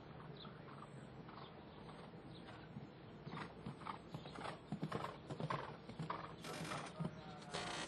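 A horse cantering on sand arena footing, its uneven hoofbeats growing louder as it passes close about halfway through, with two short rushing noises near the end.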